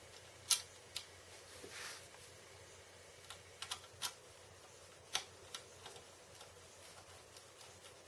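A screwdriver driving a small screw into the side of an SSD mounting plate in a drive bay, heard as scattered, irregular light clicks and ticks.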